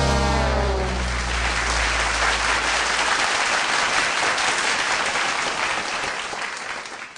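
The last chord of a big band rings out and dies away in the first second or so as an audience breaks into applause. The clapping then carries on steadily and fades out near the end.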